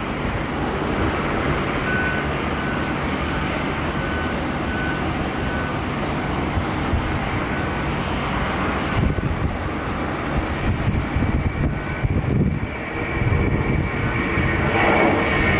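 Airbus A330 jet engines at takeoff power through the takeoff roll and lift-off: a steady heavy rumble. A high engine whine comes up over the last few seconds as the airliner climbs out.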